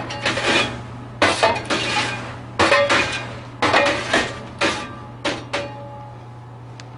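A popcorn scoop scraping and knocking against the perforated metal screen of a popcorn machine cabinet as popped corn is pushed forward, in about seven strokes roughly a second apart that stop a little after halfway. A steady low hum runs underneath.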